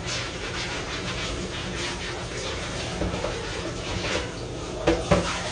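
Rinsing at a kitchen sink: water running and splashing, with a bowl knocking against the sink about three seconds in and twice near the end.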